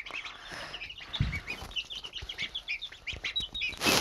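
Young chicks and ducklings peeping: many short, high cheeps overlapping. A brief rustle of shavings comes just before the end.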